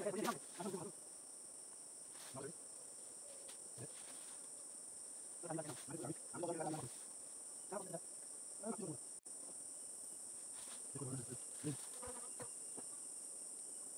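Steady high-pitched insect chorus droning without a break, with a few short bursts of muffled, speech-like voice over it.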